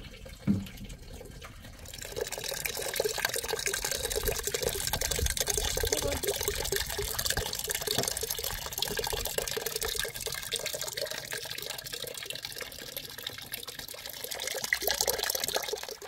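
A single thump about half a second in, then from about two seconds a steady stream of water running from a tank's tap into a metal cooking pot, splashing as the pot fills.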